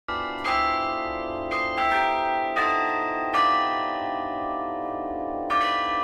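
Tower bells ringing a slow sequence of about seven strikes at different pitches, the tones overlapping and ringing on between strikes.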